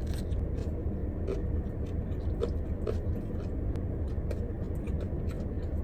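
Steady low hum of a car heard from inside the cabin, with scattered faint clicks and small taps from eating.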